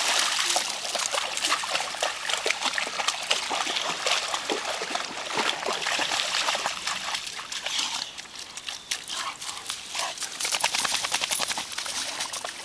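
Water splashing as a boxer and a black dog run and wade through a shallow creek. The splashing eases off about two-thirds of the way through, then picks up again.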